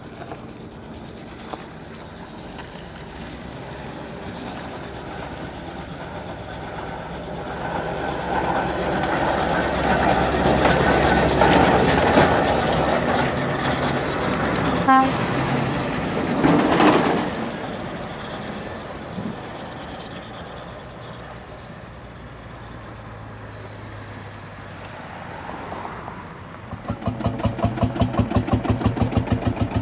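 Steam traction engine passing close by, its running building to a peak about halfway through, with a brief toot near the loudest point. Near the end a vintage tractor's engine takes over with an even, rapid beat.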